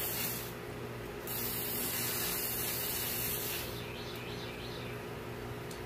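Garden hose spray nozzle spraying water as a hiss in two spells. The first trails off about half a second in, and the second lasts about two seconds and stops about three and a half seconds in.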